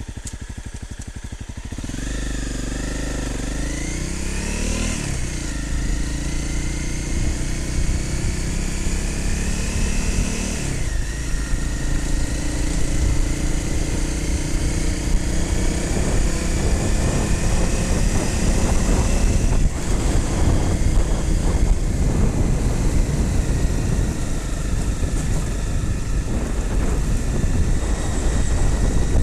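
Motorcycle engine running while the bike is ridden off-road. Its note rises in pitch, drops sharply about ten seconds in, and then becomes rougher and more uneven.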